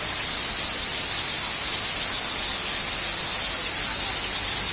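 Water pouring down an artificial rock waterfall, heard up close as a loud, steady, hissing rush.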